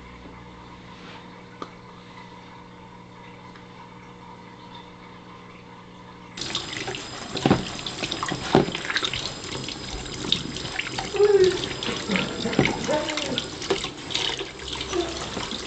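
Kitchen tap running into a stainless-steel sink, the stream splashing over hands being washed, with irregular louder splashes. It starts suddenly about six seconds in; before that there is only a faint steady hum.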